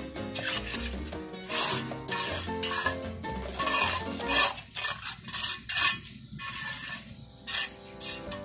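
A trowel scraping and spreading cement-and-sand grout over cement paving tiles, in a run of short, harsh scrapes, over background music.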